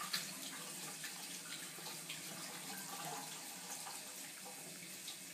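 Angora cat eating wet food from a bowl close to the microphone: steady wet chewing with many small clicks.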